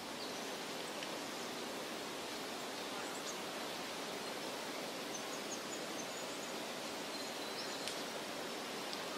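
Steady, even hiss of outdoor ambience, with a few faint, short high chirps.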